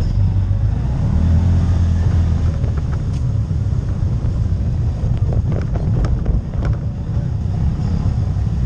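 CFMOTO CForce ATV engine running steadily as the quad drives along a bumpy dirt trail, with a cluster of knocks and rattles from the machine over rough ground about halfway through.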